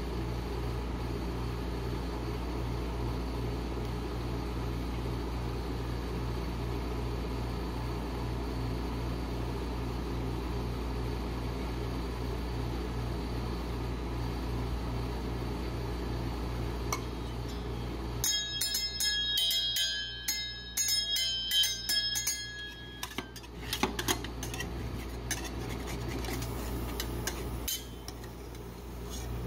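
Rolled-ice-cream cold plate machine humming steadily with a pulsing low drone. About two-thirds of the way through the hum stops and steel spatulas clink and ring in quick metallic strikes for about five seconds, followed by a few scattered taps and scrapes on the plate.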